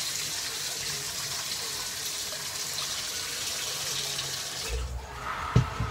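Kitchen tap running water into a stainless steel bowl at the sink, shut off near the end, followed by a single thump.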